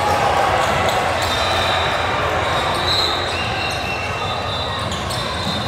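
Basketball game in a gym: a ball bouncing on the court amid a steady echoing hubbub of players' and spectators' voices.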